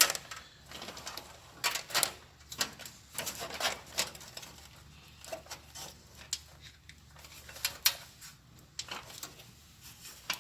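Irregular light clicks and knocks, some in quick clusters, of a motherboard being set down on the standoffs of a PC tower case and slid forward into place.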